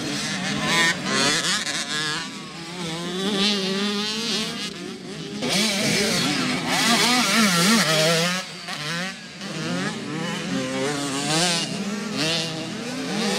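Several motocross dirt bikes running on the track, their engines revving up and easing off, with the pitches overlapping as different bikes rise and fall.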